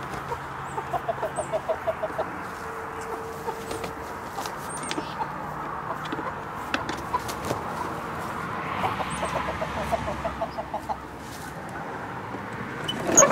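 Chickens clucking at their coop, in two quick runs of short, evenly spaced clucks: one near the start and one about nine seconds in.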